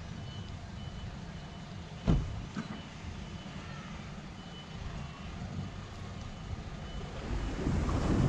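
Evenly repeated electronic reversing beeps over a vehicle engine idling. A car door shuts with a single thump about two seconds in. Near the end the engine and rolling noise grow louder as the car starts backing down the ramp.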